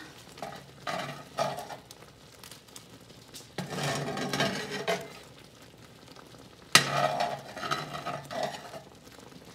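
Metal ladle stirring a thick, boiling cream sauce in a cast-iron skillet. It comes in three rough, swishing spells, with a sharp clink of the ladle against the pan about seven seconds in.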